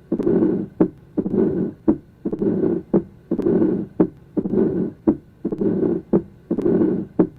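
Heart sounds with a mid-diastolic murmur: a short sharp heart sound followed by a longer murmur, the cycle repeating about once a second.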